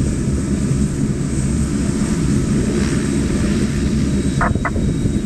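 McDonnell Douglas MD-80-series jet's rear-mounted JT8D turbofans rumbling steadily at approach power as the airliner passes low on short final to land. Two short blips sound about four and a half seconds in.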